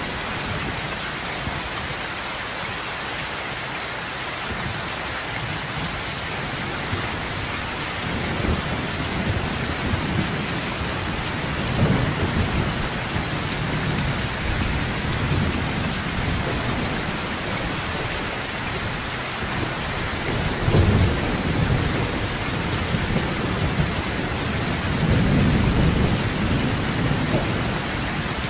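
Heavy, steady rain drumming on a metal roof, with rolling thunder. Low rumbles swell up several times: one about 12 seconds in, the strongest about two-thirds through, and a long one near the end.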